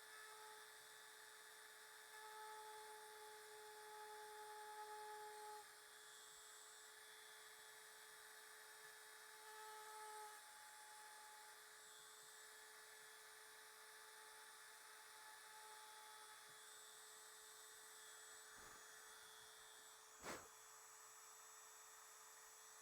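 Near silence: a faint steady hum that swells into a slightly louder whine twice, with one soft knock near the end.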